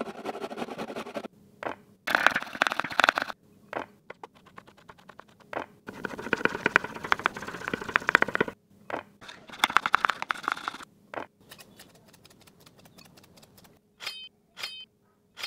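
A run of close-up kitchen prep sounds: a carrot rasped against a stainless steel box grater, then rapid knife strokes chopping cucumber on a wooden board. Near the end come two short ringing clinks of a metal spoon against a glass bowl.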